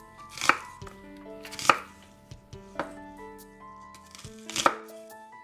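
Chef's knife chopping through a red onion onto a wooden cutting board: three sharp chops, with a lighter cut between the second and third.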